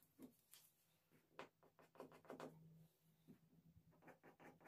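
Near silence: faint, irregular scratching strokes over a low steady hum.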